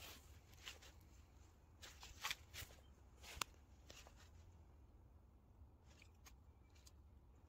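Near silence: a low steady room hum with a few faint, short clicks in the first half.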